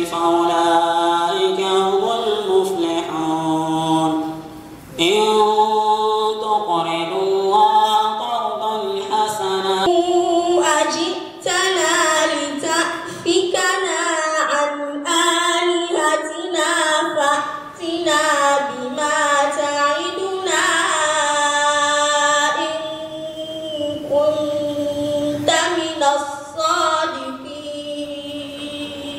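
A girl reciting the Quran in a melodic chanted style, drawing out long wavering notes, with short pauses for breath about four and eleven seconds in.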